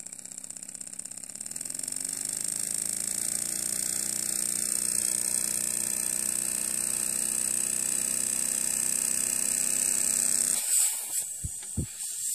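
Miniature brass steam engine running on compressed air at about 3 to 6 psi: it speeds up over the first couple of seconds, then runs fast and steady with a hiss of exhausting air. Near the end it stops abruptly, followed by a couple of short knocks.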